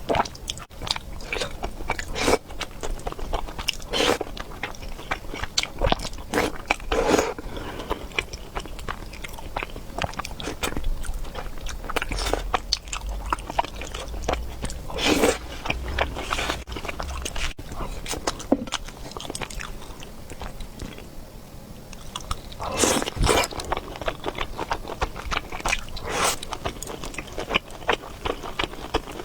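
A person chewing and biting food, likely noodles and meatballs, with wet mouth clicks and a few louder bites. There is a short lull about three-quarters of the way through.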